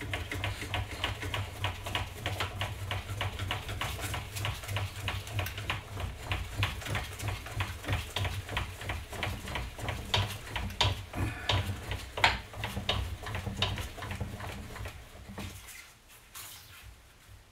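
Bench drill press running with a low hum and a steady, rapid ticking, then stopping near the end.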